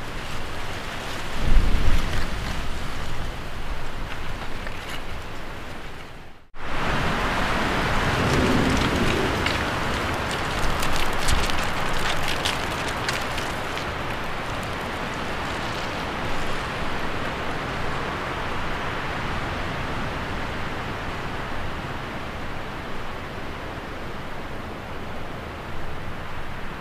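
A steady rushing noise with low rumbles about two and eight seconds in, and a brief cut to silence about six and a half seconds in.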